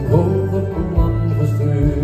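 Live folk-rock band playing an instrumental passage: a bowed violin carries the melody with a wavering vibrato over strummed acoustic guitars, bass guitar and drums.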